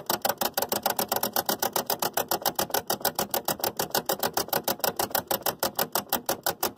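Rotary wafer switch, freshly sprayed with contact cleaner, being turned rapidly back and forth through its detents, a steady rattle of sharp clicks at about nine a second. Working the switch like this spreads the cleaner over the contacts to clean them.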